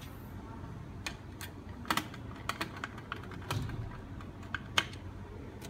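Irregular light clicks and knocks, about a dozen, the loudest about two seconds in and again near five seconds in, from hands handling a video recorder and its hard-drive parts.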